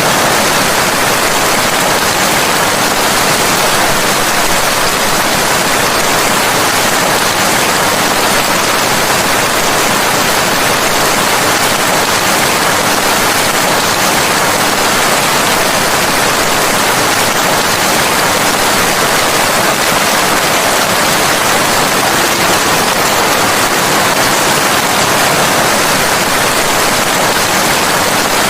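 Steady, heavy rain falling, a dense even hiss without breaks or separate drops.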